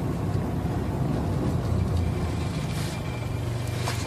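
Car engine running steadily while still cold, shortly after a cold start, heard from inside the cabin as a low hum.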